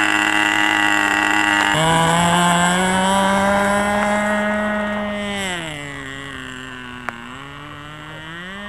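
Leo .28 two-stroke glow engine of a Sky Baby RC model plane running at high revs with a buzzing whine. About five seconds in, its pitch falls and it grows fainter as the plane moves away. The pitch climbs again near the end.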